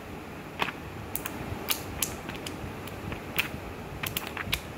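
Pages of a bound paper notes booklet being flipped by hand: a dozen or so short, irregular paper ticks and flicks.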